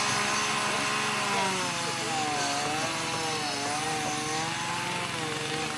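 A priest's slow, sustained liturgical chant, the pitch drifting gently up and down, over a steady hiss.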